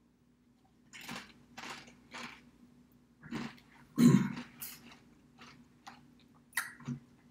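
Paqui Carolina Reaper tortilla chip being bitten and chewed: about ten crisp, irregular crunches starting about a second in, with one louder, deeper burst about four seconds in.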